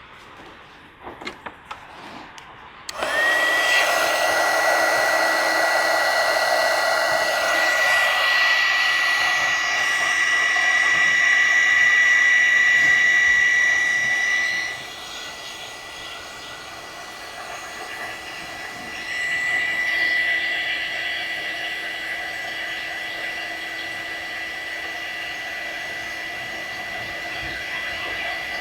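Heat gun switched on with a click and running steadily: a loud blowing noise with a high, steady whine. It drops in level about halfway through. The gun is melting solder-seal connectors on repaired wiring.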